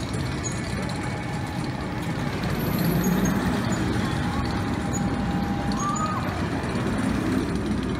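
The Smiler, a Gerstlauer Infinity steel roller coaster: its train rumbling along the track, getting a little louder about three seconds in.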